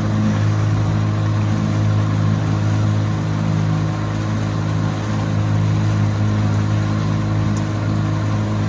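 Motorboat engine running steadily at cruising speed, a constant low drone with rushing noise over it.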